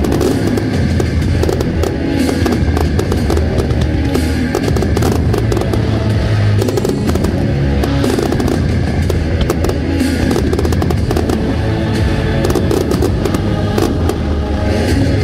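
Loud music playing over a rapid, continuous string of firework bangs and crackles from an aerial fireworks display.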